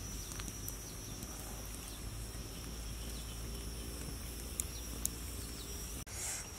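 Small twig campfire burning, with two sharp crackles about four and a half and five seconds in. Behind it is a steady high insect drone and a low rumble.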